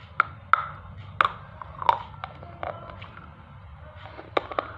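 Close mouth sounds of a hard black slate triangle being bitten and chewed: a string of sharp crunches, the strongest in the first two seconds, then a quick cluster of three near the end.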